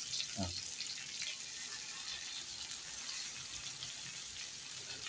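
Fish shallow-frying in hot oil in a cast-iron pan: a steady, fine crackling sizzle.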